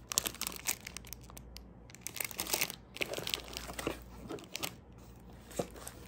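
Metallic foil and cellophane gift wrapping crinkling and rustling as it is handled and pulled open, in a string of irregular crackles.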